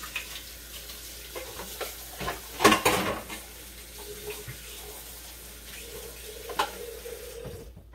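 Kitchen faucet running into a stainless sink as hands are rinsed of raw egg, with a loud clatter in the sink about two and a half seconds in and a knock later; the water shuts off near the end.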